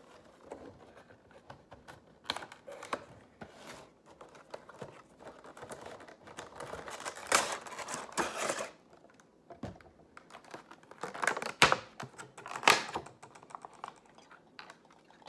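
Cardboard toy box being handled and its top flap opened, then a vinyl figure pulled out of a clear plastic bag. Irregular clicks, taps and plastic rustling, loudest about halfway through and again near the end.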